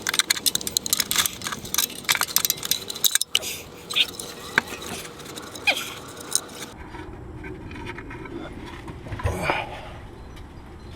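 Ratchet wrench clicking rapidly as small 8 mm nuts are run off, followed by scattered metal clinks and knocks of parts being handled.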